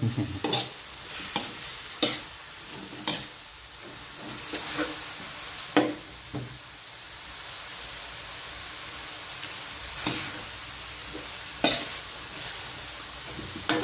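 Minced pork larb sizzling in an aluminium wok as it is stir-fried, with a metal ladle stirring and scraping it and knocking sharply against the pan every second or few.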